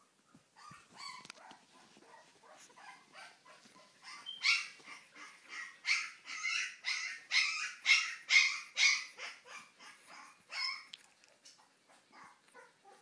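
Young Siberian Husky puppy yelping in a run of short, high-pitched calls: soft at first, then louder from about four seconds in at roughly two a second, tailing off near the end.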